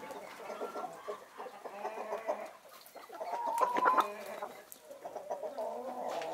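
Backyard chickens clucking, with a louder run of calls about halfway through.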